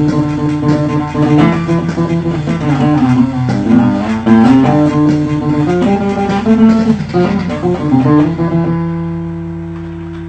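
Acoustic guitar played in its low register to sound like a bass: a quick plucked line of low single notes. Near the end a last note is held and left to ring out and fade.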